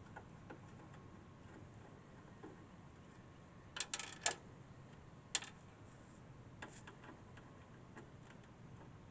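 A few light, sharp clicks and taps from handling a window air conditioner's cover: a quick cluster of three about four seconds in, then single ones about a second and two and a half seconds later, over a low steady background.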